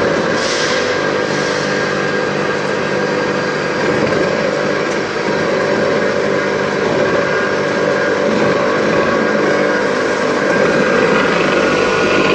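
Electric peanut butter colloid mill running steadily under load, grinding peanuts into butter, with a constant motor hum and a thin steady whine over the grinding noise.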